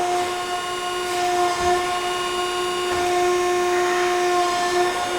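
Hydraulic pump of an Ermak CNC press brake running with a steady, even whine while the ram cycles.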